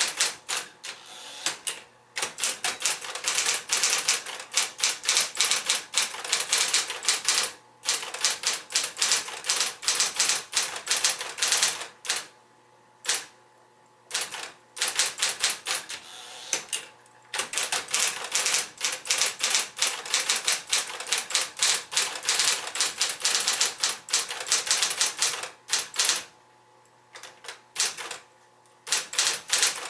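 Smith-Corona Electra 110 electric portable typewriter being typed on in fast runs of key strikes, broken by several short pauses. Under the typing and in the pauses, the typewriter's motor keeps up a low, steady hum.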